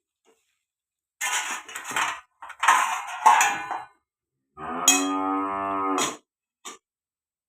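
Two bursts of scraping in a cooking pan, then a cow mooing once, one steady call about a second and a half long, a little past the middle.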